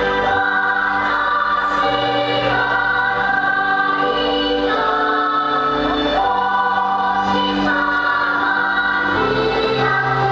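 Music with a choir singing long held chords that change every second or two.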